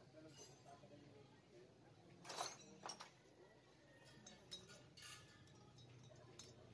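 Light metallic clinks and taps of small engine parts and hand tools being handled, the loudest about two and a half seconds in and another few around five seconds, with near silence between.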